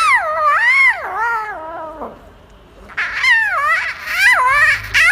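Domestic cat giving two long, wavering meows: the first falls in pitch over about two seconds, the second starts about three seconds in.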